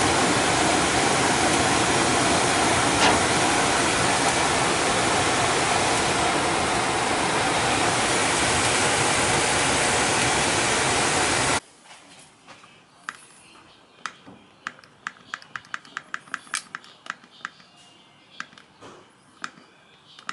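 Bryant gas furnace running with its burners lit and its newly replaced exhaust fan motor: a loud, steady rushing noise that gives way abruptly to a quiet room about 12 seconds in. Then a quick run of light clicks from thermostat buttons being pressed.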